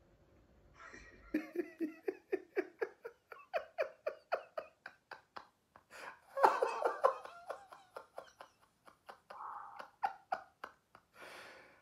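A man laughing hard: long runs of quick ha-ha pulses, about five a second, starting about a second in and loudest around the middle.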